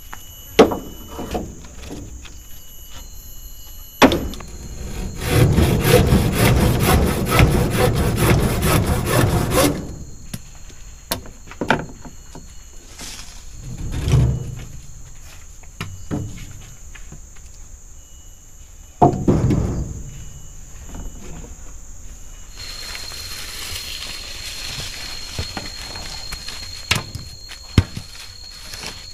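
Wood being worked by hand: a few sharp knocks, and about five seconds of rapid, even strokes on wood starting some five seconds in. Insects drone steadily throughout.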